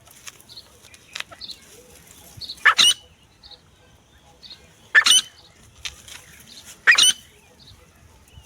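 Francolin (teetar) calling: three loud, harsh calls about two seconds apart, with faint high chirps repeating in the background.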